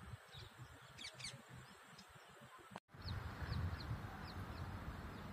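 Short, high chirps of small birds, a few around a second in and a run of them just after three seconds, over low gusty wind rumble on the microphone. The sound drops out completely for a moment just before three seconds.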